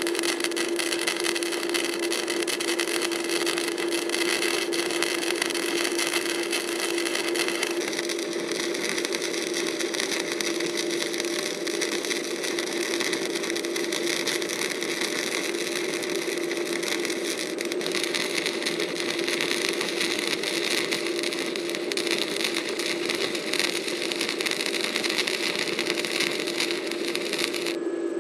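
Electric arc welding with a small inverter welder on a steel tine mounting plate: a steady crackling sizzle of the arc over a steady hum, the sizzle cutting off abruptly near the end as the arc is broken.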